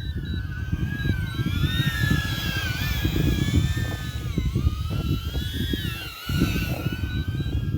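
Small quadcopter drone's motors and propellers whining, the pitch wavering up and down as the motor speeds change, with wind buffeting the microphone.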